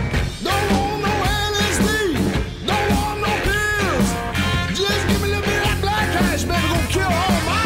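Rock music with a singing voice over a steady beat.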